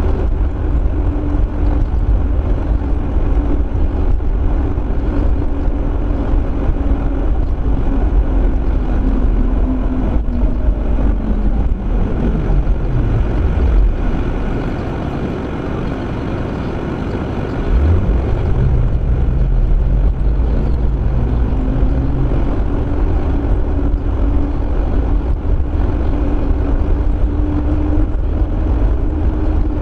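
Car road noise heard from inside the car: a steady drone of tyres and engine at cruising speed. Near the middle it falls away as the car slows to a stop and stays quieter for a few seconds, then climbs again as the car pulls away and gets back up to speed.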